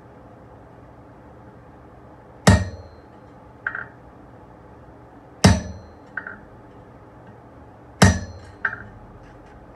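Three heavy hammer blows on a hand-held top fuller set on hot steel on an anvil, spaced about three seconds apart, each ringing briefly. Each blow is followed by a lighter clink.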